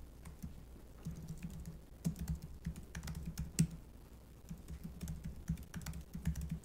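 Typing on a computer keyboard: irregular runs of quick key clicks, with one harder keystroke about three and a half seconds in.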